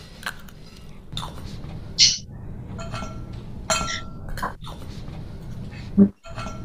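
Spoon clinking against a plate and glass during a meal, a series of irregular sharp clinks about one a second, some ringing briefly, over a low steady hum.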